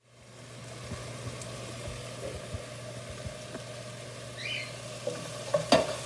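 Chopped onion sizzling in a nonstick frying pan over a gas burner, fading in at the start over a steady low hum. A few sharp knocks of a wooden spoon against the pan come near the end as stirring begins.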